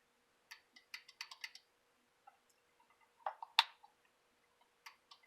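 Irregular light clicks and taps of small parts and tools being handled at a repair bench, with one louder click about three and a half seconds in. A faint steady tone runs underneath.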